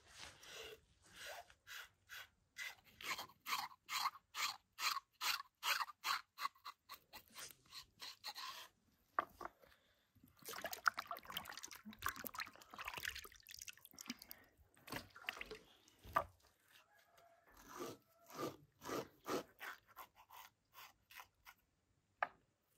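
A knife scraping and cutting fish on a wooden cutting board in quick repeated strokes, about two or three a second, with a stretch of steadier scraping partway through.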